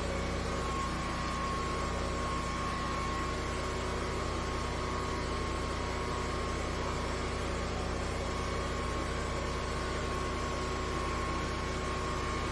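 High-pressure sewer jetter's engine and pump running steadily with a constant hum and a steady whine, the hose working in a blocked drain line.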